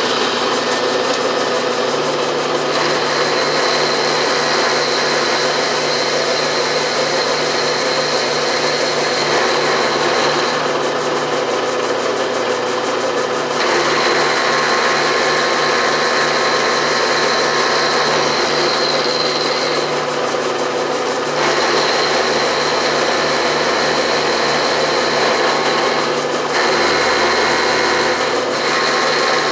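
Vertical milling machine running, its 3/4 inch finishing end mill taking a light finish cut in steel, with a high ringing tone from the cut that comes and goes every few seconds over the steady motor hum.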